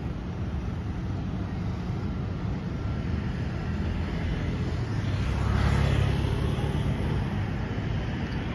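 Steady low road-traffic rumble, swelling as a car passes about five to seven seconds in.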